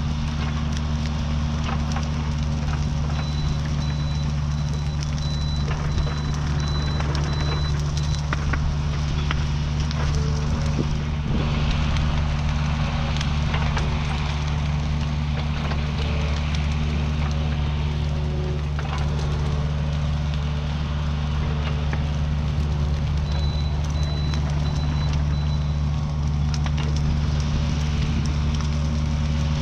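Mini excavator's diesel engine running steadily under work, with scattered snaps and crackles from the burning brush pile. A high, evenly pulsed beeping sounds twice, for a few seconds each time.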